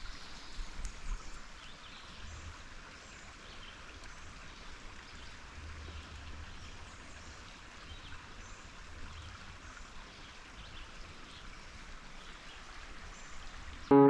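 Faint, steady outdoor rushing noise like running water, with some low rumble in the first couple of seconds.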